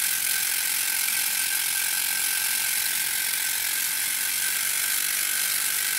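Electromechanical six-digit counter of a vintage aircraft fatigue consumption indicator stepping rapidly under a pulsed test signal, a fast, steady mechanical chatter that keeps an even pace throughout.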